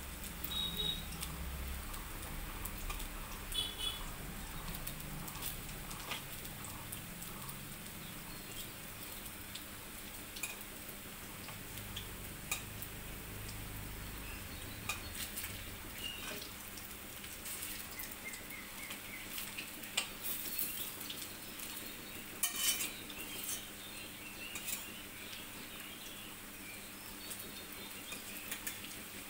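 Masoor dal pakoras frying in hot oil in a metal kadai: a steady sizzle, with the scrape and clink of a steel spatula against the pan as the fritters are turned.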